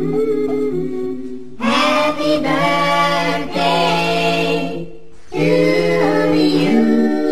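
Unaccompanied vocal music: several voices singing long held notes in harmony, without clear words, with short breaks between phrases about a second and a half in and again around five seconds.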